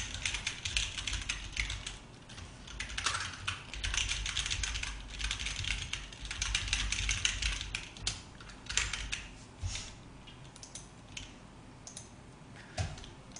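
Typing on a computer keyboard: quick runs of key clicks that thin out into scattered single taps toward the end.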